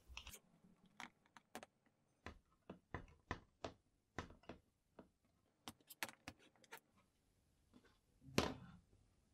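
Light, irregular clicks and taps as thin cut titanium rods are picked up off a cutting mat and fitted into holes in a 3D-printed plastic part. A louder knock and scrape comes about eight seconds in.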